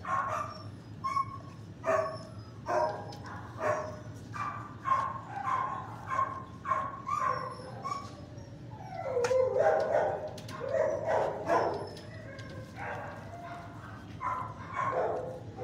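Dogs barking in a run of short, repeated yips and barks, with a longer, wavering stretch of yelping midway through.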